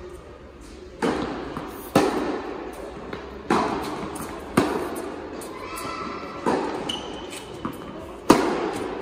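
Tennis ball struck by rackets and bouncing on a hard indoor court during a rally. It is a sharp knock about every one to one and a half seconds, each ringing on in the large hall.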